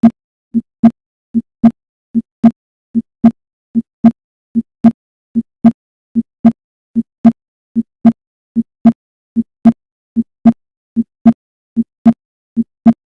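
Heart sounds heard on auscultation: a steady lub-dub, the first and second heart sounds (S1 and S2) about a quarter second apart, repeating at about 75 beats a minute. The second sound of each pair is the louder, and the gaps between beats are silent.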